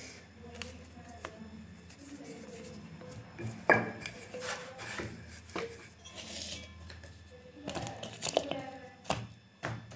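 Kitchen handling noises as paratha dough is shaped and rolled: scattered knocks and clatters of a wooden rolling pin and board on a stone counter, with one sharp knock just before four seconds in and a quick cluster of knocks around eight seconds.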